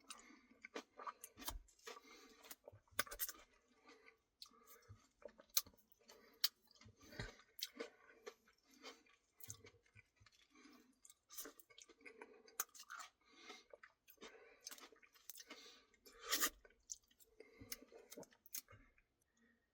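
Faint chewing of soft ice cream with cookie pieces: wet mouth sounds with soft crunches and scattered small clicks.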